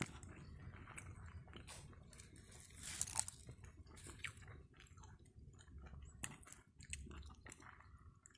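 A person chewing a mouthful of rice and vegetables, with small clicks of a metal spoon against a plastic bowl.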